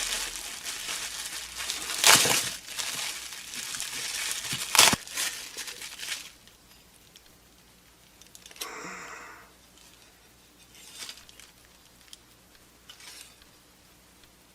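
Packaging crinkling and tearing as a shipping box is unpacked, with two sharp, louder rustles about two and five seconds in. After about six seconds only a few faint handling sounds remain.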